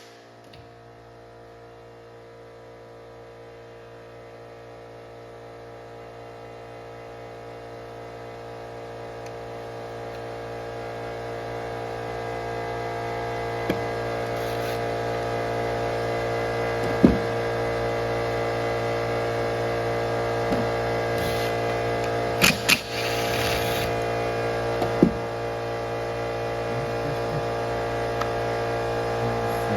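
A steady, even hum with many fixed tones, growing louder over the first dozen seconds and then holding level. It is broken by a few sharp knocks partway through.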